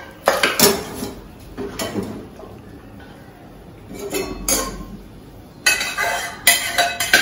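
Stainless-steel pots knocking and clinking, with a ladle scraping metal, as cooked chow chow is tipped and scraped out of one pot into a pot of dal. A few separate knocks at first, then denser clattering in the last second and a half.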